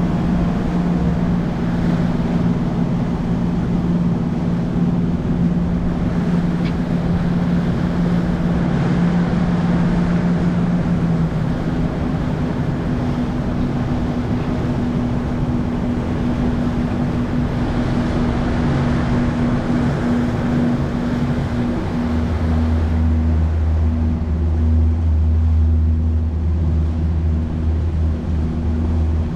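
A 200 hp Mercury outboard pushing a Cobia 237 center console at a steady cruise, with wind and water rushing past the hull. The engine's hum shifts pitch about a third of the way in, and a deeper hum comes in about three-quarters of the way through.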